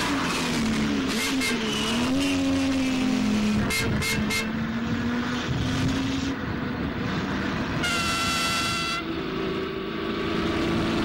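Car engines running on a film soundtrack, their pitch wavering up and down. Quick horn toots come about a second in and again about four seconds in, and a long horn blast sounds about eight seconds in.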